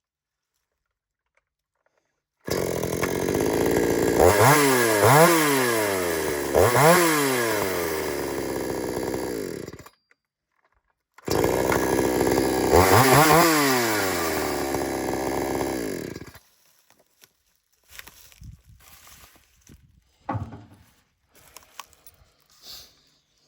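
Gasoline chainsaw running with its throttle revved up and down several times, in two stretches that start and stop abruptly. Faint scattered knocks follow near the end.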